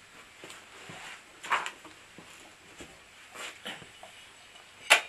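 Handling noises as a plastic-cased diverter unit is picked up: brief rustles and light knocks, then a sharp knock near the end.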